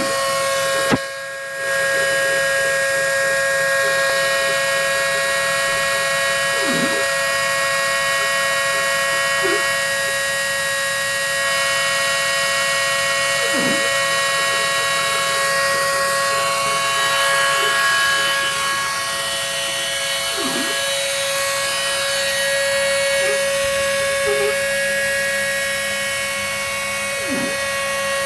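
CNC machine running with a steady motor whine made of several held tones over a hiss. About every seven seconds there is a short falling tone, and there is a brief dip about a second in.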